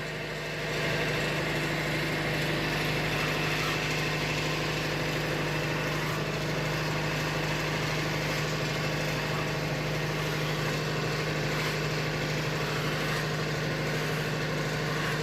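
Wood-Mizer LT70 sawmill's engine idling steadily at a constant, unchanging pitch.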